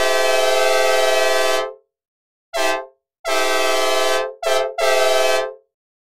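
Synthesized recreation of a Nathan K5LA five-chime train horn, dry with no reverb, sounding a chord in a horn pattern: a long blast of about two seconds, a short toot, another long blast, a quick short toot and a final blast that ends about a second before the close.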